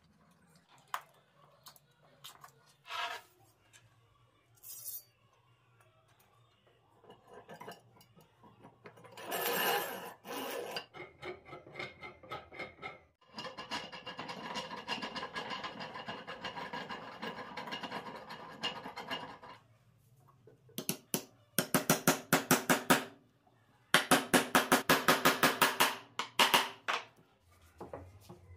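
Wooden parts handled on a workbench: scattered knocks, then a long wooden fence slid across the table top for several seconds. Near the end come two loud bursts of rapid clicking, about ten a second.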